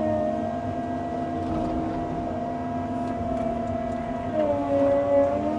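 Tracked excavator running under load, its diesel engine rumbling with a steady whine from the hydraulics. About four seconds in, the pitch shifts and the sound grows louder as the machine works the bucket.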